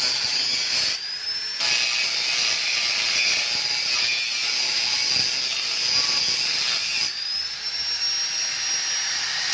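Angle grinder with a cutting disc slicing through a motorcycle's stock steel exhaust muffler: a steady, harsh grinding hiss. Twice, about a second in and again about seven seconds in, the cutting eases briefly and the grinder's motor whine rises in pitch as it speeds back up.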